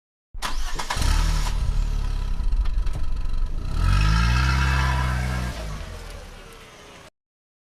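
Car engine starting up and running, with a clattery start. About four seconds in it revs up once, holds, drops back, then fades before cutting off abruptly.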